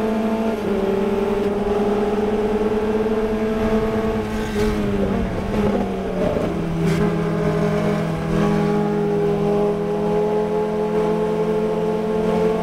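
Formula Ford race car's 1600 cc Ford Kent four-cylinder engine, heard onboard, running hard at a steady pitch. About five seconds in the note breaks up briefly, then settles lower and holds steady.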